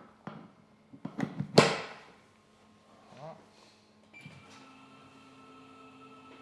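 A quick run of sharp cracks about a second in, the last and loudest about a second and a half in: joints cavitating under a chiropractic spinal adjustment. A brief voice sound follows, then a faint steady hum.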